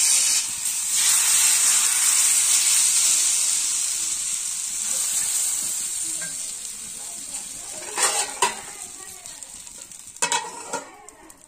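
Thin rice-flour ghavne batter sizzling loudly on a hot, oiled cast-iron kavil pan just after it is poured. The hiss fades steadily as the pancake sets. A few sharp metal clinks come near the end as a steel plate is set over the pan as a lid.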